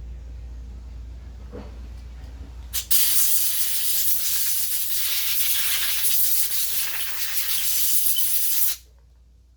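A pressurised spray hissing steadily for about six seconds, starting with a click about three seconds in and cutting off suddenly.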